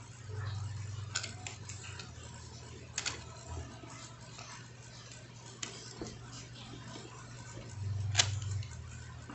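Scattered clicks and knocks of hand tools and small metal parts being handled while an angle grinder is taken apart, the sharpest knock about eight seconds in. A low hum comes and goes twice.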